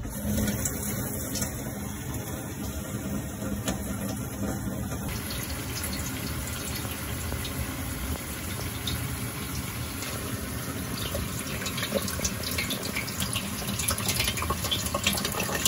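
Water leaking from the plumbing under a sink and pouring steadily into a stainless steel bowl, a trickling splash that gets a little louder and splashier near the end.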